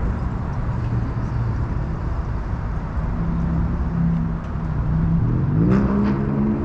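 Car driving: a steady engine hum with road noise. About five seconds in, the engine note rises as the car accelerates.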